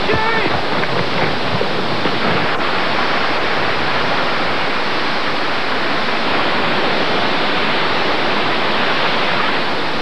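Waterfall: a steady, loud rush of water pouring over rock. A brief shouted call cuts in at the very start.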